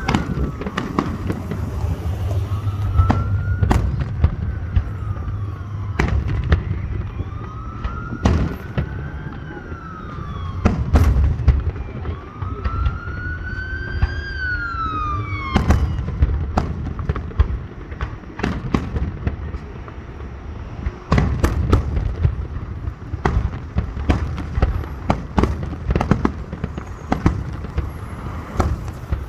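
Fireworks going off, a string of sharp bangs and booming rumble. Through about the first half a wailing siren rises and falls four times, then fades out.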